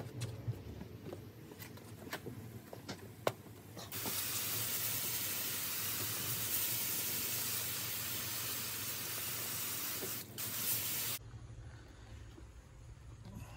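A few light taps and clicks, then about four seconds in a steady spray of water from a hose starts hissing. It falters briefly near the end and cuts off suddenly after about seven seconds.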